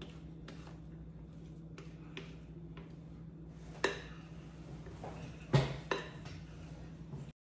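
A spatula scrapes thick cake batter out of a glass mixing bowl, with scattered clicks and taps of the utensil against the bowl, the loudest about four and five and a half seconds in. A steady low hum runs underneath, and the sound cuts off just before the end.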